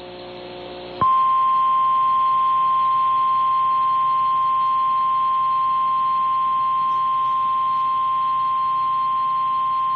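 Weather-radio static hiss, then about a second in the NOAA Weather Radio 1050 Hz warning alarm tone starts: one steady high tone held about nine seconds. It signals that a warning broadcast, here a severe thunderstorm warning, is about to follow.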